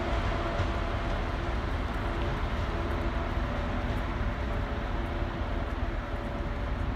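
Electric locomotive moving off along the station tracks: a steady rumble of wheels on rail with a faint hum from its motors, growing a little quieter near the end as it draws away.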